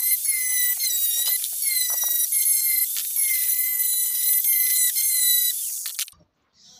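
Electric angle grinder with an abrasive disc grinding the edge of a steel blade: a loud, high-pitched whine whose pitch dips again and again as the disc is pressed into the metal. About five and a half seconds in it is switched off and winds down to a stop.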